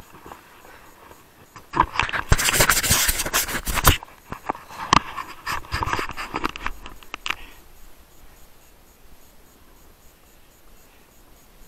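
Scraping and knocking close to the microphone from a mountain biker who has just stopped on a gravel track. It comes in two spells, about two and five seconds in, then goes quiet.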